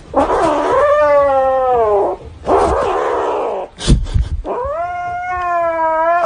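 Kitten growl-yowling to guard its plush toy from a reaching hand: a long drawn-out yowl that drops in pitch at the end, a harsh noisy growl, then a second long yowl. A sharp click comes about four seconds in.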